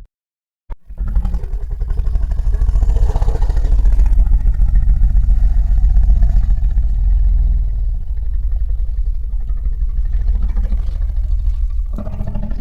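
Godzilla sound effect: a click, then a long, loud, low rumble with a rapid flutter, like a heavy engine, starting about a second in.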